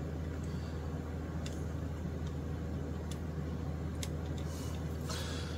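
Steady low hum of room tone, with a few faint light ticks from handling about a second and a half and four seconds in.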